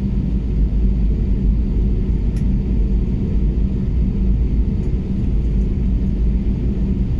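Cabin noise of an Airbus A320neo taxiing: a steady low rumble from the engines and the wheels rolling on the taxiway, with a faint steady hum.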